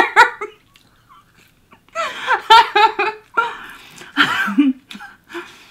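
A woman laughing in two short bursts of giggling, about two seconds in and again about three and a half seconds in, after a brief pause.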